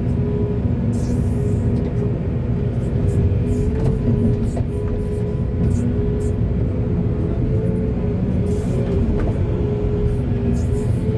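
Diesel engines of heavy earth-moving machinery running with a steady, loud low drone, with brief hisses now and then.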